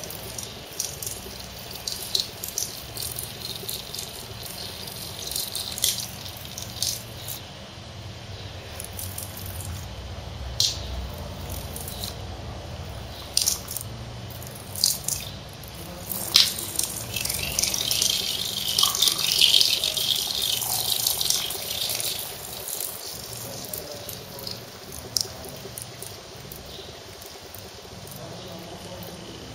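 Urine stream splashing and dripping against the wall of a flushless urinal, coming in uneven spurts with many small spatters. There is a denser stretch of steady splashing a little past the middle, then it trails off into scattered drips.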